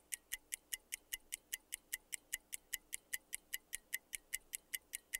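Countdown timer sound effect: steady clock-like ticking, about five sharp ticks a second, running while the answer timer counts down.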